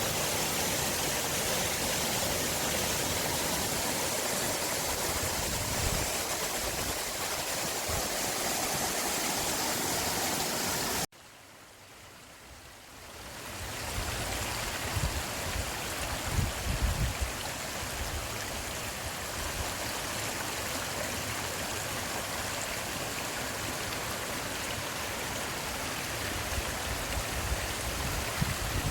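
Forest stream running steadily with an even rush of water. About eleven seconds in it cuts off suddenly and fades back in over a few seconds, after which low rumbling bumps of wind on the microphone come and go under the water.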